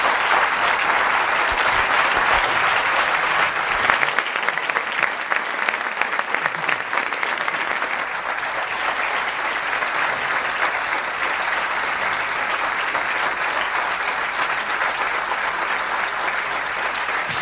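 Audience clapping in a long, steady round of applause.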